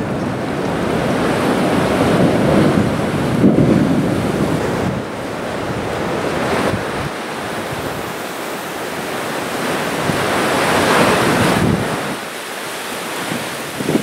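Strong offshore Santa Ana wind buffeting the microphone over the rush of surf breaking, swelling and easing in gusts.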